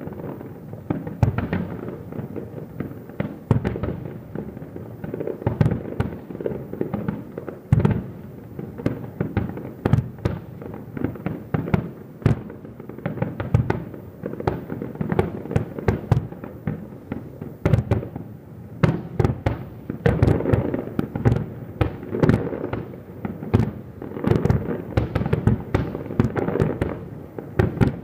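Festival fireworks finale: a dense, continuous barrage of aerial shells and firecrackers bursting in rapid, irregular bangs over a steady rumble, thickening toward the end.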